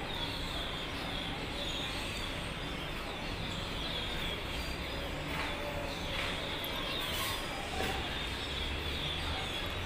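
A flock of small birds chirping together in a continuous din, over a steady low background hum.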